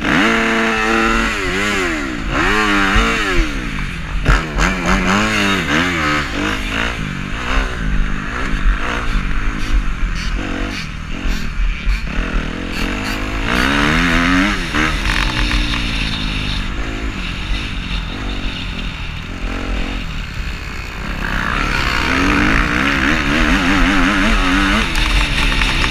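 Kawasaki KX250F four-stroke single-cylinder dirt bike engine being ridden hard, revving up and falling back again and again through the gears, with other dirt bikes running close by. Heard through a helmet-mounted microphone, with a steady low rumble of wind.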